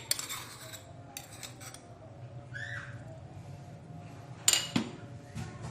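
Spoon clinking and scraping against a strainer while ground spices are sifted into a fine powder: scattered sharp metallic clinks, the loudest about four and a half seconds in.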